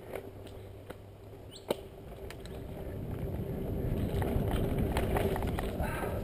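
Mountain bike rolling fast down a dirt singletrack: tyre noise over the ground and clicks and knocks from the bike, with a rush of wind and rolling noise that grows louder a few seconds in as speed builds.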